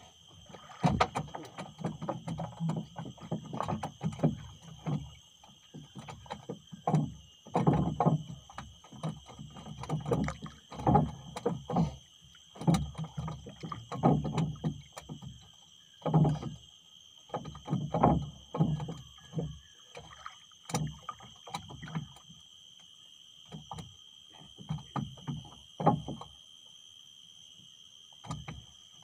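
Water slapping and knocking against the hull of a small drifting boat in irregular bursts, thinning out near the end, over a steady high-pitched whine.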